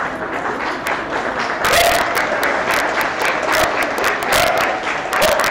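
Crowd clapping and applauding, with sharp irregular claps that grow busier after the first couple of seconds, over a murmur of voices and short calls.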